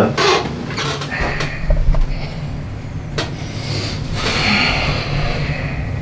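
Rustling and shifting as a person gets up off a chiropractic treatment table, with a single sharp click about three seconds in, over a steady low room hum.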